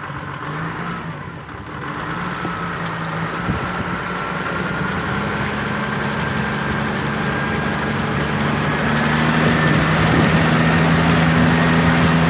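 4x4's engine running under load while fording a river, getting gradually louder. The speaker thinks it may be straining a little.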